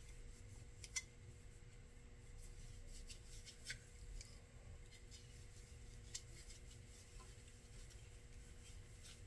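Near silence over a faint steady hum, broken by a few faint clicks and light rubbing as the orange plastic shield of a laser engraver module is handled and wiped with a lens cloth. The sharpest click comes about a second in.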